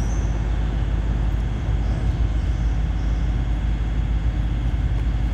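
Steady, loud low rumble of road traffic passing overhead on a concrete bridge.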